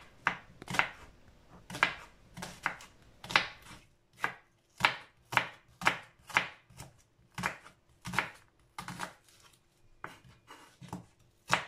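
Kitchen knife slicing peeled onions on a wooden cutting board: a steady run of sharp knife strokes through the onion onto the board, about two a second.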